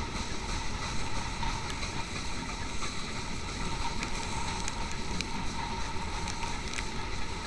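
Steady rushing noise of a moving steam locomotive, heard from a camera mounted on the train with wind buffeting the microphone. A few sharp ticks are scattered through it.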